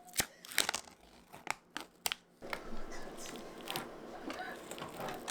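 About five sharp clicks or taps in the first two and a half seconds, then a steady noise with scattered small clicks, as of objects being handled.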